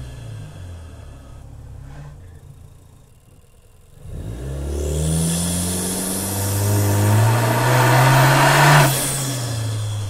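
Car engine and exhaust under acceleration. It runs quieter for a few seconds, then about four seconds in pulls hard, its pitch climbing steadily and getting louder, until it breaks off suddenly near the end and settles to a lower note.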